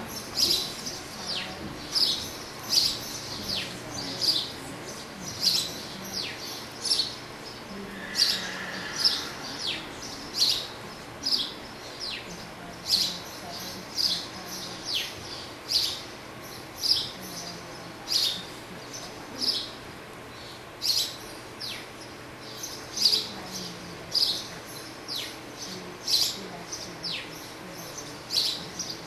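A small bird chirping over and over in a steady rhythm, about one and a half short high chirps a second.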